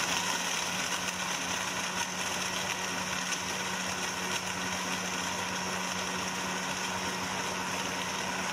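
Countertop blender with a plastic jar running at a steady speed, its motor giving an even hum and whine as it blends mango chunks, yogurt, milk and ice cubes into lassi.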